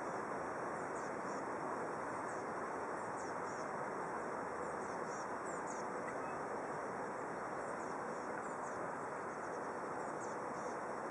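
Small birds chirping faintly and repeatedly over a steady outdoor background hiss.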